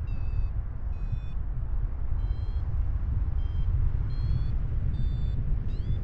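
Wind buffeting the microphone in flight, a steady low rumble. Over it, a paragliding variometer gives short electronic beeps, about one to two a second, changing in pitch with the climb rate.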